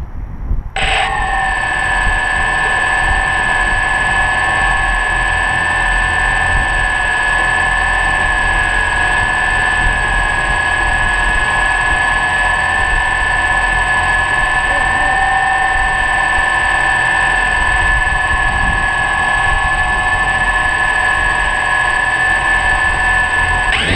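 DJI Phantom quadcopter's motors and propellers starting up suddenly about a second in, then spinning steadily at idle on the ground with a steady whine of several tones, heard close up from the camera on the drone. Right at the end the pitch starts to rise as the throttle is pushed up for takeoff.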